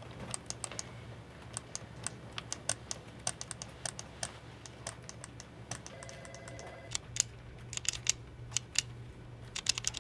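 Light taps and clicks in short, irregular clusters: Morse code being tapped out.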